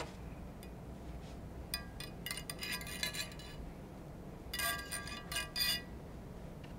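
Light metallic clinking and jingling from metal gun-cleaning tools being handled, in two spells: one of about two seconds, then a shorter one about a second later.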